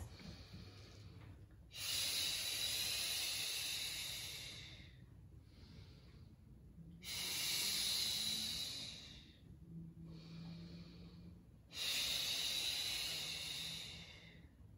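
A woman's paced exercise breathing during Pilates roll-downs: three long, airy exhales a few seconds apart, with quiet stretches between them.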